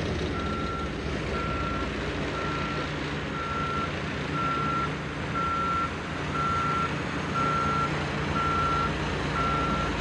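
A heavy vehicle's engine running steadily, with a reversing alarm beeping about once a second. It is a dubbed sound effect: it starts and stops abruptly around the clip.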